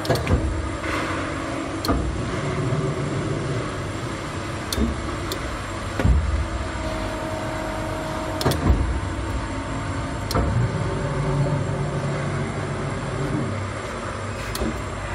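Steady workshop machinery noise with a low hum and a whine that comes and goes, broken by about six sharp knocks or clicks.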